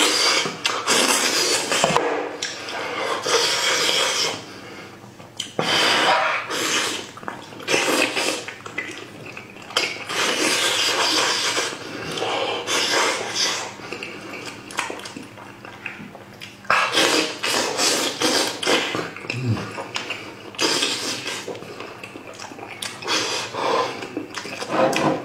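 Close-miked wet eating sounds from spiced sheep's head in thick sauce: chewing, sucking and slurping on the meat, with sticky squelches as fingers tear pieces off the head. They come in irregular loud bursts with quieter gaps.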